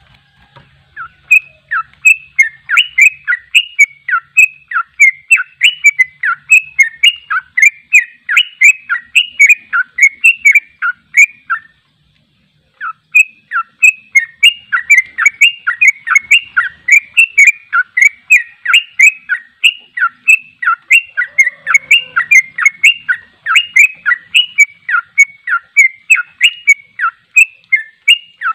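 Yellow-vented bulbul (trucuk) singing its rapid 'ropel' song: a long, fast, loud run of chattering notes that stops for about a second near the middle, then carries on without a pause.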